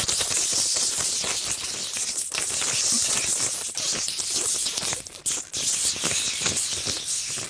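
A man's mouth-made imitation of tempura frying in hot oil: a dense, crackling sizzle with a couple of brief breaks about five seconds in.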